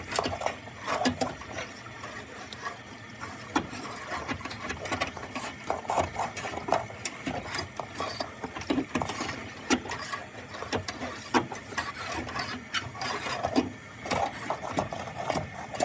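A stiff rod scraping and knocking against the bottom of a steel water heater tank, in quick irregular clicks and scrapes, loosening calcium deposits.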